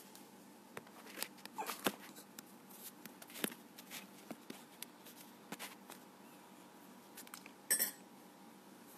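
Scattered light clicks and rustles of a smartphone being handled and set in place, close to its microphone, over a faint room hum. The loudest click comes near the end.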